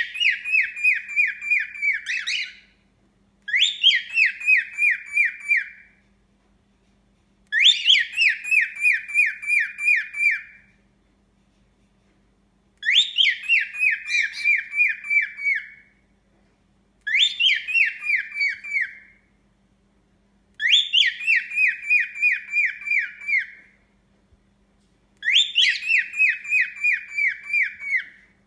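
Cockatiel giving a repeated dawn call: seven phrases of quick whistled notes, about four a second. Each phrase opens on a higher note, settles into a slightly falling run, and lasts two to three seconds, with a pause of about two seconds between phrases.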